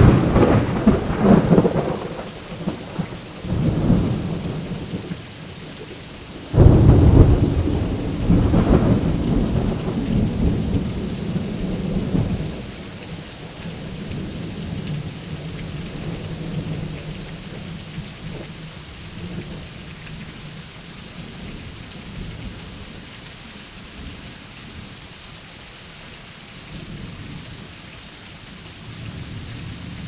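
Steady heavy rain with thunder: a sudden thunderclap right at the start, another louder clap about six and a half seconds in, each rolling on as deep rumbling that dies away over the following several seconds, leaving the rain hiss with faint distant rumbles.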